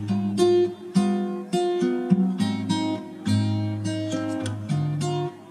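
Background music: an acoustic guitar strummed, with chords changing about twice a second.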